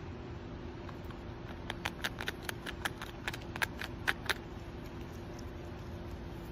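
A prehensile-tailed porcupine chewing a crunchy piece of food held in its paws: a run of sharp crunches, about five a second, from near two seconds in until just past four seconds, over a steady faint hiss and hum.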